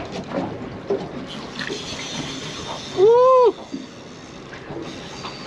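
A person's loud, excited "woo!" about three seconds in, one call rising then falling in pitch, over the steady wash of sea water lapping against a small boat's hull.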